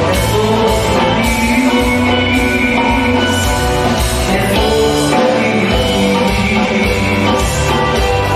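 A woman singing a Greek song with a live band, bouzouki and electric bass playing along.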